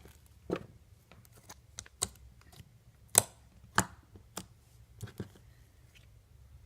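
Homemade glue-and-borax slime being poked and squeezed by hand, giving irregular sharp clicks and pops, about seven in all, the loudest about three seconds in.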